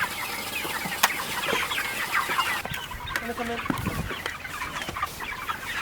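A flock of young meat chickens clucking and peeping together in many short, overlapping calls. There is a single sharp knock about a second in and a low thump about four seconds in.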